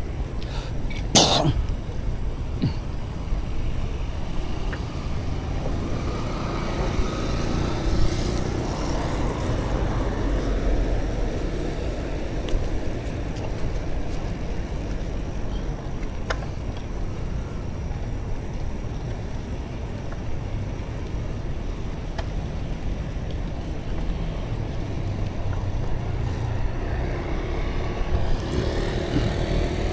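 Street traffic at night: a steady low rumble of vehicles on the road, with one passing closer near the middle. A loud sharp snap comes about a second in.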